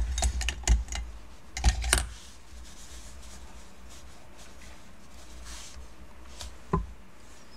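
A crayon stick dropped back into a pot full of crayon sticks, making a quick cluster of clicks and knocks during the first two seconds. Then a faint rubbing of a fingertip blending crayon on paper, with one more knock near the end.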